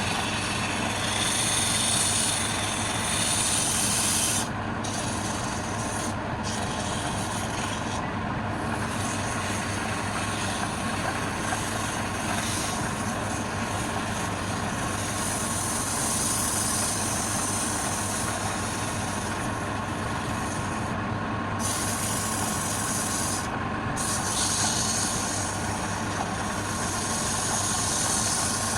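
Wood lathe running steadily, with a turning tool cutting the spinning wood. The high cutting hiss drops out briefly about five times as the tool comes off the work, while the motor hum carries on.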